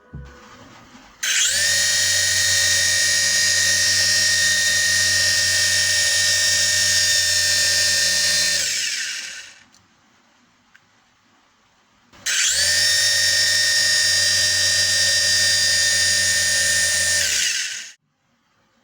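Small electric motors of a home-made mini helicopter running at full speed in two runs of several seconds each, giving a steady high-pitched whine. Each run starts abruptly and falls in pitch as the motors spin down.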